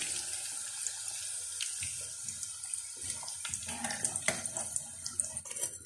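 Breaded chicken strips deep-frying in hot oil: a steady sizzle with crackling pops, and a few sharper clicks near the middle, as the golden pieces are lifted out.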